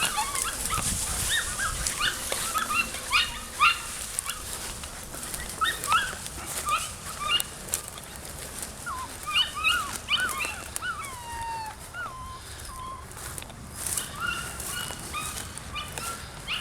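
Seven-week-old German Shorthaired Pointer puppies yipping and whimpering: many short, high-pitched calls, some sliding down in pitch, scattered throughout.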